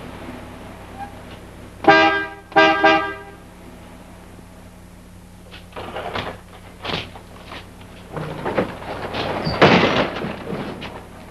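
Car horn sounding two short honks, one after the other. A few seconds later come knocks and clatter as the garage door is unlatched and pushed open.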